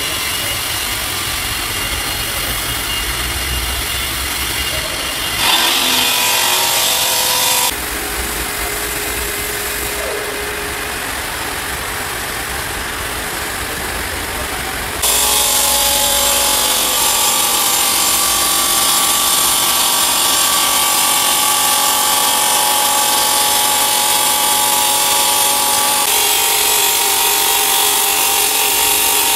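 Donatoni Jet 525 CNC bridge saw's diamond blade cutting a water-cooled stone slab: a steady grinding whine of blade on stone over the machine's running noise. The loudness jumps suddenly several times where the footage is cut between takes.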